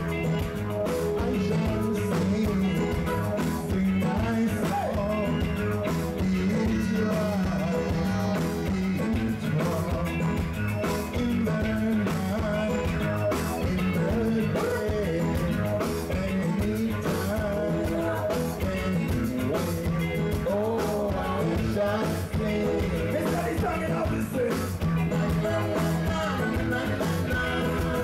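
Reggae band playing with a steady bass line, guitar and a singer, running continuously.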